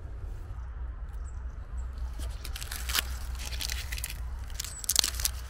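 Footsteps crunching through woodland leaf litter and twigs, with sharper snaps about three and five seconds in, over a steady low rumble on the microphone.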